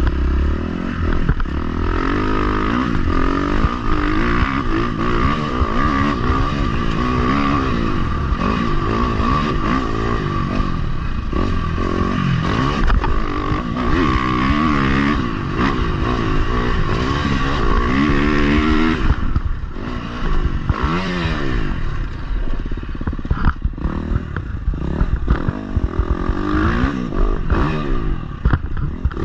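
Dirt bike engine on the move, its revs climbing and falling over and over through the throttle and gears. About two-thirds of the way in it eases off, then picks up again in shorter bursts of revs.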